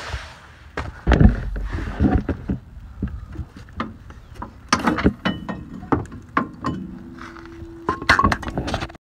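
Irregular metallic knocks and clanks from a car's old rear shock absorber being worked loose from its mount and handled, with one heavy thud a little over a second in and a cluster of sharp clinks near the end.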